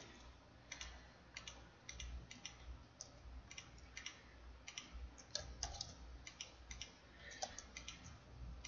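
Faint, irregular clicks of a computer keyboard and mouse, a few keystrokes or button clicks each second, as editing shortcuts are pressed.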